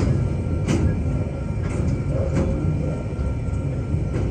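TasRail freight train's hopper wagons rolling past over a level crossing: a steady low rumble, with sharp wheel clicks about every half second to a second.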